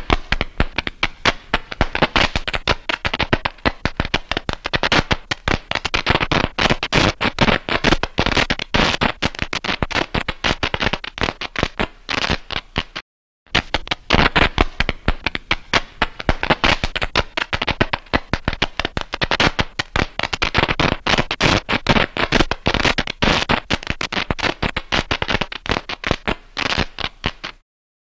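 Optical noise static sound effect: dense, irregular crackling of clicks and pops. It breaks off for a moment about halfway through and stops just before the end.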